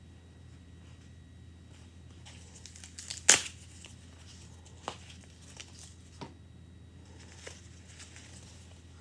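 Crinkling and rustling of something being handled, with one sharp, loud crackle about three seconds in and a few softer clicks after it.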